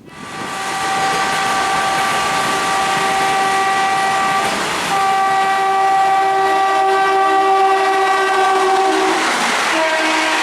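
An Indian Railways electric train horn sounding two long blasts with a short break between them, over the noise of the train running past. Near the end a lower-pitched horn note takes over.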